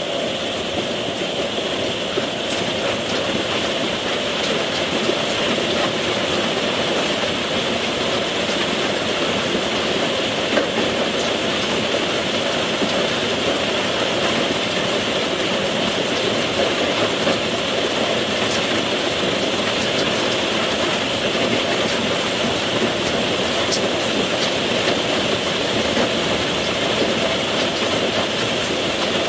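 Steady rain falling, an even hiss with scattered faint sharp drip ticks.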